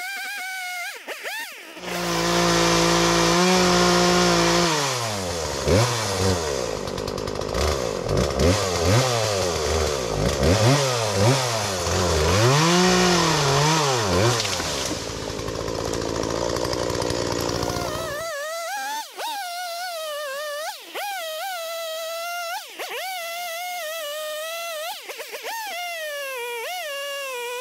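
Chainsaw bucking a fallen tree: it starts about two seconds in, runs steadily, then revs up and down over and over through the cut before cutting off abruptly. Electronic background music with wavering tones plays before and after it.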